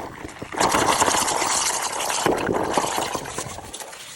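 Water leaking from a pipe, a steady hissing rush of water that swells about half a second in and fades away toward the end.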